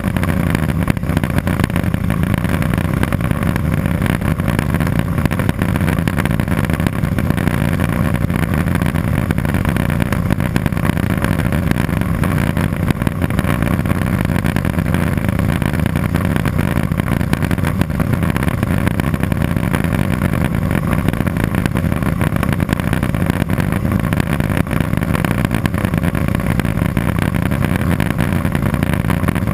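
Turbine engine and propeller of a Cessna 206 Soloy turbine conversion running steadily as a loud, even drone.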